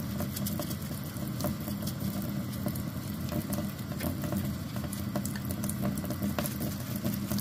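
Kitchen faucet running steadily into a sink while a toothbrush scrubs flux off the solder lines of a stained glass piece, adding many small clicks and splashes.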